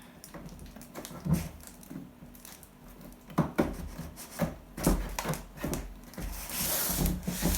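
Packaging around a scooter bar being cut open and handled: irregular knocks and rustling, with a longer scraping, tearing noise near the end.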